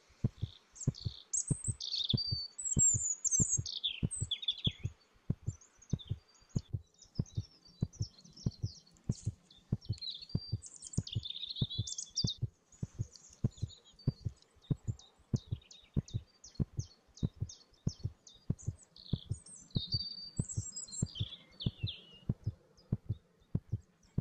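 Small birds chirping and warbling in short phrases, over a steady low thump about twice a second, like a heartbeat.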